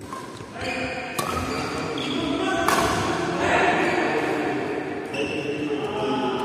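Badminton rackets striking a shuttlecock in a rally: two sharp cracks, about a second in and near three seconds in, echoing in a large indoor hall, over a steady pitched background sound.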